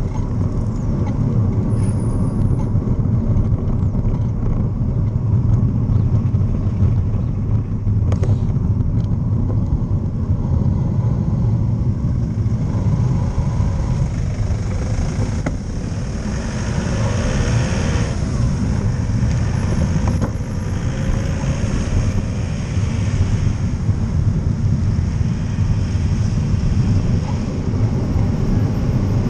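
Road traffic heard from a moving bicycle, with steady wind rumble on the camera's microphone. The traffic noise swells for a couple of seconds just past the middle, as a vehicle runs close by.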